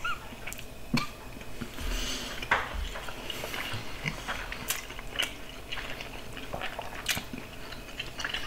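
Two people chewing mouthfuls of cheeseburger, with irregular wet mouth clicks and smacks.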